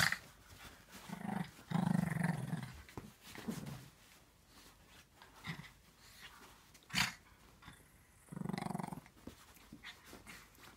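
Small dog growling playfully in short bouts as it romps on a duvet. The longest growl comes about two seconds in and another about eight seconds in. A couple of sharp knocks or rustles fall between them.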